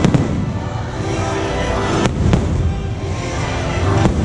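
Aerial fireworks shells bursting overhead: a couple of sharp bangs at the start, two more about two seconds in, and another near the end. Show music plays under the bursts.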